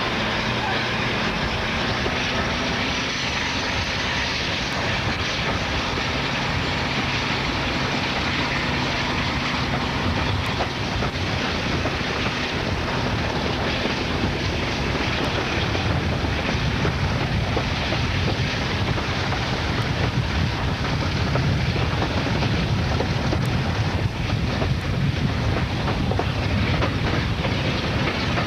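Diesel-hauled passenger train running, heard from an open coach window: a steady rumble of wheels on rail with a low, even engine hum in the first half. The low rumble grows louder in the second half.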